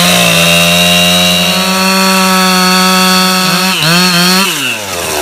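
Two-stroke chainsaw at full throttle cutting into a rotten wooden sill beam, its engine pitch high and steady. About four seconds in the pitch wavers and dips as the saw loads, then winds down near the end as the throttle is released.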